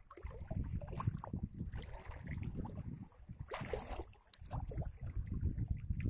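Shallow sea water sloshing and lapping close to the microphone, with irregular small splashes and one louder splash about three and a half seconds in.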